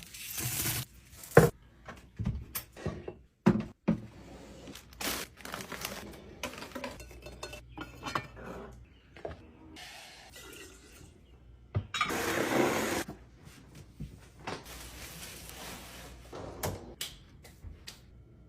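Kitchen containers, jars and dishes being handled and set down: a string of separate clinks and knocks, with a noisy rush lasting about a second around twelve seconds in.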